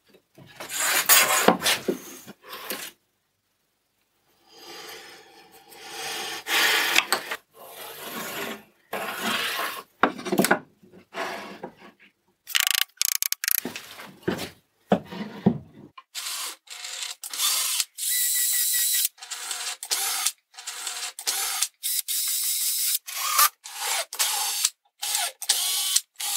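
Plywood being marked and handled: pencil scratching, and boards rubbing and scraping as they are fitted together. In the second half comes a run of short stop-start bursts from a Makita cordless drill working into the plywood.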